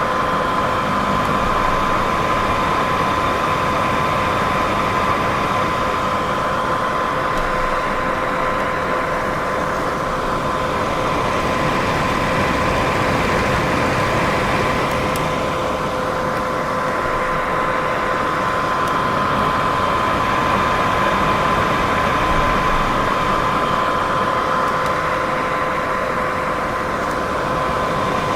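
Steady white noise for sleep: an even, unbroken hiss with a faint constant hum running through it.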